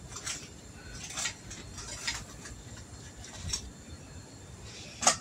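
Scattered light clinks and knocks of plates and utensils on a kitchen counter, about five, with the sharpest near the end.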